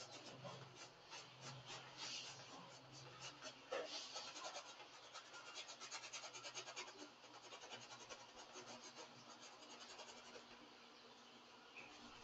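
Paintbrush stroking across a stretched canvas in quick short dabs, a faint rapid scratching at about four to five strokes a second that dies away near the end. A low steady hum runs underneath.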